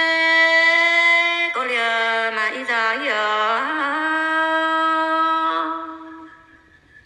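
A solo voice singing an Iu Mien call-and-response song, unaccompanied, with long held notes and wavering, ornamented turns between them; the last note fades out about six seconds in.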